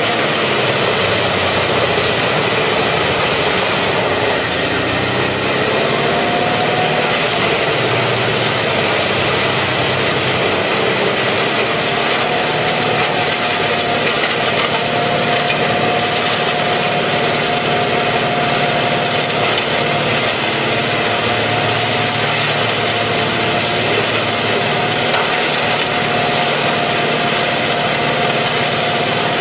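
Mobile wood chipper running under load as wood is fed in, engine and chipping drum making a loud steady drone with chips blowing out the spout. Its pitch sags about five seconds in and comes back up.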